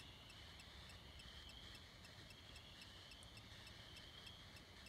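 Faint, steady high-pitched chirring of night insects, slowly swelling and fading, with a light regular ticking about five times a second.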